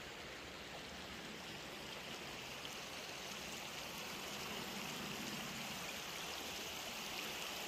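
Shallow, rocky river running over stones: a steady rushing of water, growing a little louder near the end.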